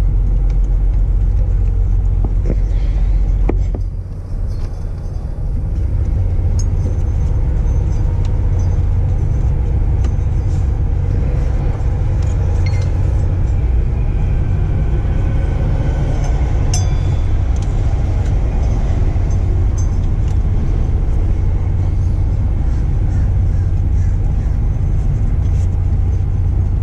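Steady low mechanical rumble, like a vehicle engine running nearby, with a brief dip about four seconds in and a few light clicks and taps of the belt and tools being handled.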